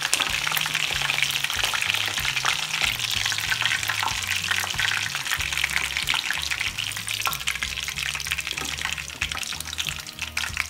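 Battered chicken pieces deep-frying in sunflower oil in a pan: a dense, steady crackling sizzle that eases a little near the end as pieces come out of the oil.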